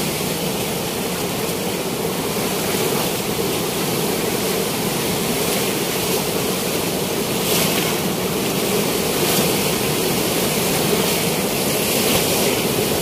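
Steady rushing roar of high, fast river water pouring through the open gates of a river weir. The hiss surges briefly about halfway and again near the end.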